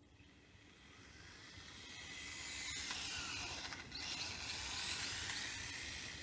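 Whine of a WLtoys K989 mini RC car's small electric motor and gears, with its tyres hissing on asphalt, as it accelerates flat out on a timed dash. It grows louder over the first few seconds, is loudest in the middle, then fades as the car runs off into the distance.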